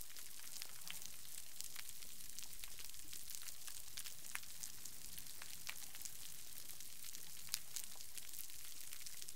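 Underwater recording from a degraded coral reef: a faint, steady crackle of snapping shrimp, dotted with occasional sharper single snaps. It is a quiet reef soundscape.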